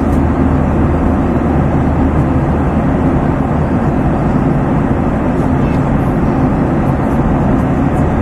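Steady cabin noise of a passenger airliner in flight, heard from inside the cabin: an even, unchanging rumble and rush of the engines and the air streaming past the fuselage.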